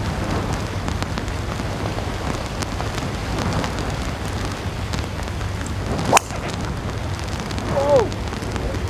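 Strong wind buffeting the microphone with driving rain: a steady rushing noise, heaviest in the low end. A single sharp crack comes about six seconds in, and a brief voice-like cry near the end.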